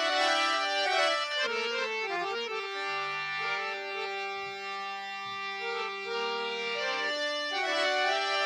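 Harmonium playing the instrumental introduction to a Gujarati bhajan: held reedy notes and chords that move from pitch to pitch.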